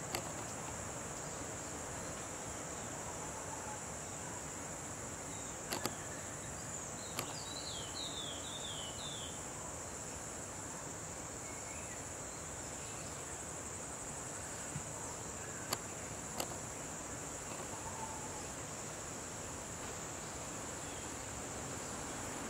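Steady high-pitched insect drone, with a fainter pulse above it repeating about once a second. A short run of falling bird chirps comes about seven seconds in, and a few sharp clicks are scattered through it.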